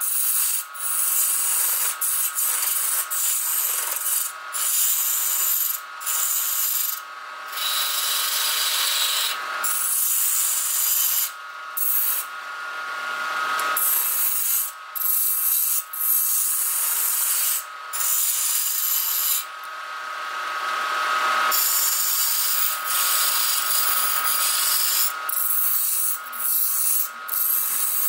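Wood lathe turning a wooden blank while a hand-held chisel shaves its surface: a steady scraping hiss of the cutting edge on the wood, broken by many short pauses, and twice swelling in gradually.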